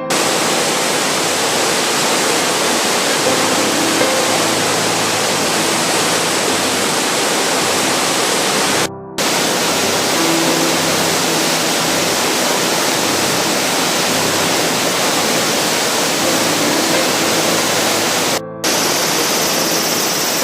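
Waterfall roaring: a loud, steady rush of falling water, cut off briefly twice.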